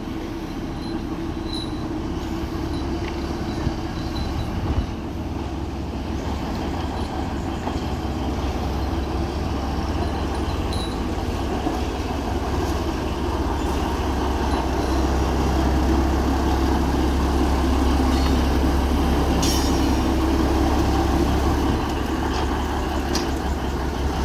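A train locomotive running as it pulls in: a steady low rumble that slowly grows louder, then eases off a little about 22 seconds in, with a few brief metallic clicks along the way.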